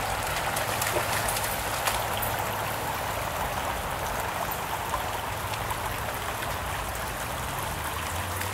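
Shallow creek running over a stony bed: a steady rush of babbling water, with a few faint clicks now and then.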